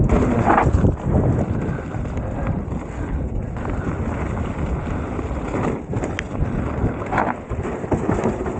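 Wind rushing over the microphone of a rider on a mountain bike moving along a trail, a steady low rumble with a couple of brief rattles, one about half a second in and one near the end.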